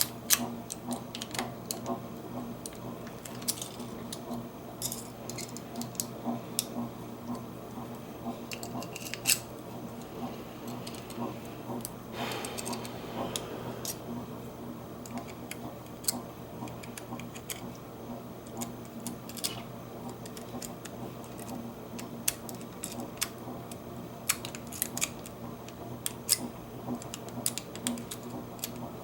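Irregular small metallic clicks and scrapes of a lock pick raking the discs inside a Bunker Hill disc padlock, over a steady low hum.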